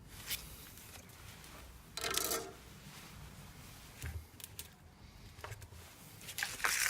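Small handling noises at a soldering bench: scattered light clicks and rubbing as the wire join and tools are moved about, with the strongest rustle about two seconds in and another near the end.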